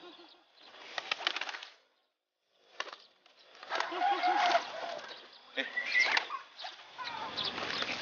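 Racing pigeons flapping their wings in short clattering bursts, with a pigeon cooing in a wavering, rolling tone about halfway through.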